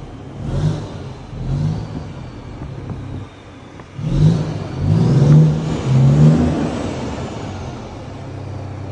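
Scania truck engine revved through a newly fitted exhaust diffuser: two short blips, then three harder revs about four seconds in, before it drops back to a steady idle.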